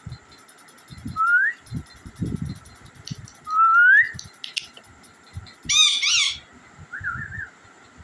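Parrot whistling: two rising whistles, then a louder, harsher two-note call about six seconds in and a short warbled whistle near the end, with soft low thumps underneath.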